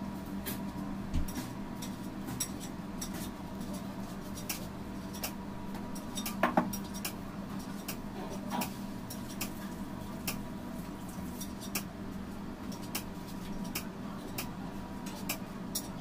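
Scattered light clicks and taps as hands squeeze and work a plastic piping bag of whipped cream against a cake on a turntable, over a steady low hum. One louder knock comes about six and a half seconds in.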